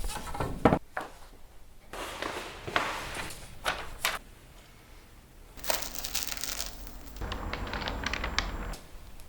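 Printmaking studio work sounds: a few sharp knocks and smacks, between stretches of scraping, rustling and crinkling of paper and tools.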